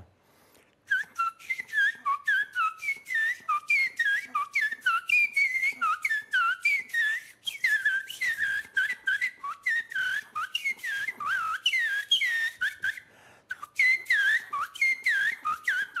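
A man whistling with his fingers at his mouth, imitating the song a male zorzal thrush sings to its mate on the nest: a long, rapid run of short sliding notes, several a second. It starts about a second in and breaks off briefly about three seconds before the end, then goes on.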